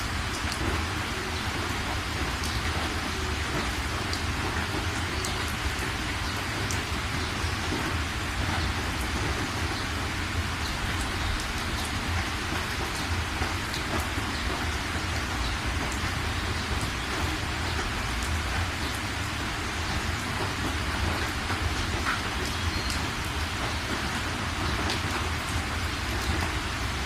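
Steady rain falling, with many scattered individual drops ticking on surfaces and a steady low rumble underneath.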